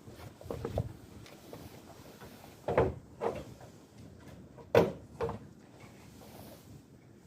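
Sharp knocks or clicks in two pairs, each about half a second apart, around three and five seconds in, with fainter clicks just before.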